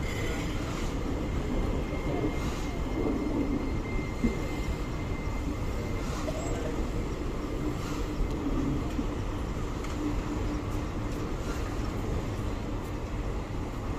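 Passenger train coaches rolling slowly past a station platform: a steady rumble of wheels on the rails with a few short knocks.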